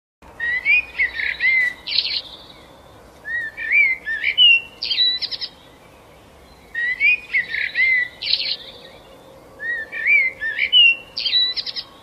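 A songbird singing in four twittering phrases with rising whistled slurs and quick high notes, each about two seconds long with short pauses between; the same two phrases are heard twice.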